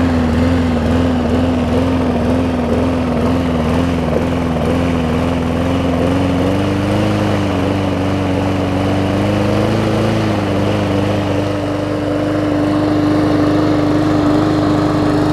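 Briggs & Stratton 300E OHV single-cylinder mower engine running steadily. Its speed wavers slightly at first, is raised at the throttle linkage about six seconds in, and holds at the higher speed. It is running again after a sheared flywheel key was replaced.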